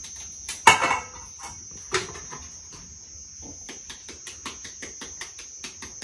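Kitchen knife cutting kernels off ears of green corn, a sharp knock just under a second in and another about two seconds in, then a quick run of short cutting strokes. Crickets chirp steadily behind.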